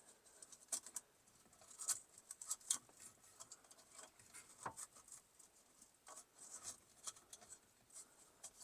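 Faint, scattered small clicks and scrapes of hands working a taped wire bundle through a car's steering column.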